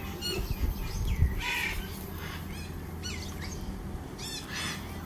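Birds chirping and calling, many short quick chirps with a couple of harsher squawks, over a low steady hum.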